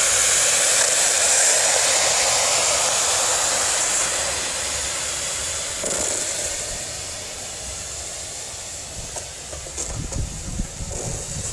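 Live-steam model Schools Class locomotive hissing steadily with escaping steam as it runs past, the hiss fading as it moves away. Near the end, the freight wagons' wheels rumble and knock over the rail joints.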